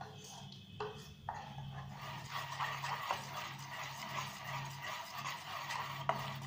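Spoon stirring thick maida and rava batter in a steel bowl. A few clicks of the spoon against the bowl come first, then from about a second in a steady wet squelching and slapping as the batter is beaten.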